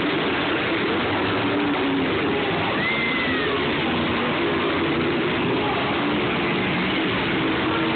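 Monster truck's supercharged V8 engine running as the truck drives across the arena's dirt floor, heard as a steady, dense din mixed with crowd noise.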